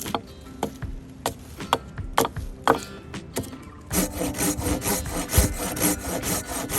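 Silky hand saw cutting through a dense ironwood (blue beech) log. The first few seconds hold scattered single strokes, then from about four seconds in come quick, steady back-and-forth strokes through the hard wood.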